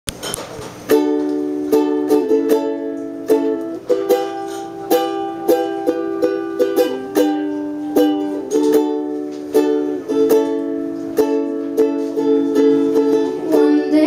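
Strummed chords on an acoustic string instrument in a steady rhythm, starting about a second in: the instrumental introduction to a song.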